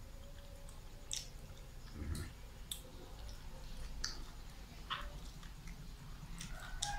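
A man eating saucy catfish with his fingers: faint chewing with scattered short wet clicks and smacks, about one a second.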